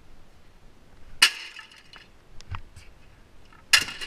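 A wooden 2x4 smashing down on a plastic boom box twice, about two and a half seconds apart. Each blow is a sharp crack followed by a brief clatter of breaking plastic and parts, with a smaller knock between them.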